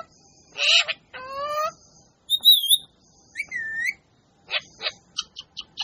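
Parrot calling: a few harsh squawks, a warbling high whistle and a whistle that dips and rises again near the middle, then a quick run of short chirps near the end.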